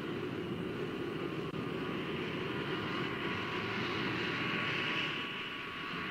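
Steady rushing roar of storm wind with a low rumble beneath it, growing a little louder and brighter about five seconds in.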